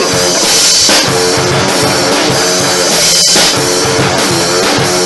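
Loud heavy rock music: a driving drum kit under a short riff that repeats about once a second.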